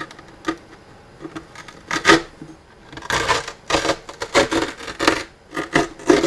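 Old metallic brocade grille cloth being pulled and peeled off the wooden baffle inside a radio cabinet, giving irregular rustling and scraping strokes. The strokes are sparse at first and grow dense from about three seconds in.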